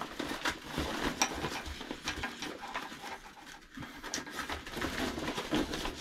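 Rustling and crinkling of a lightweight backpack's fabric as its roll-top is handled and opened, with a few sharp clicks among the rustle.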